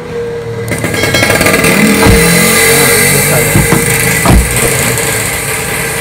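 A motor vehicle engine running, suddenly loud about a second in and staying loud, with a few dull knocks over it.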